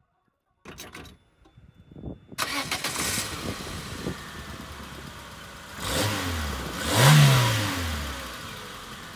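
Peugeot 206 engine heard from underneath the car, starting a little over two seconds in and settling to an idle, then revved briefly twice, the second rev the louder. This is the test run after the squeaking exhaust flexi pipe and the broken link-pipe clamp were repaired.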